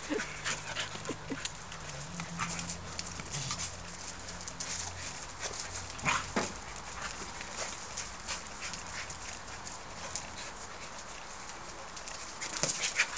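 An Irish terrier and a Labrador puppy play-fighting: scuffling and mouthing noises with short sharp sounds scattered throughout, a louder one about six seconds in and a quick run of them near the end.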